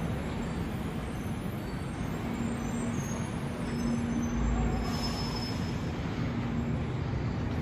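Airport people-mover tram at the platform, a steady rumble with a low, even hum. A brief faint high whine comes about five seconds in.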